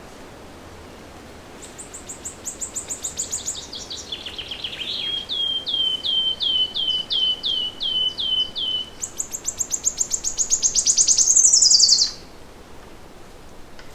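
A songbird singing one long song of rapid repeated notes. It opens with a fast high trill, slows to a lower run of about three notes a second, then breaks into a fast high trill again that stops abruptly. A faint steady hiss lies underneath.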